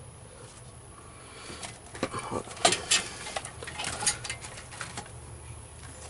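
A flurry of sharp clicks, taps and small knocks from parts and tools being handled, loudest about three seconds in, over a low steady hum.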